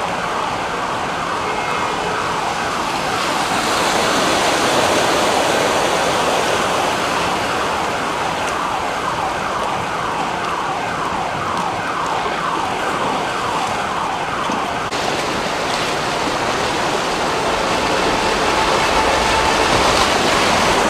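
An emergency-vehicle siren sweeping up and down over and over, over a steady rush of water and street noise on a flooded city street.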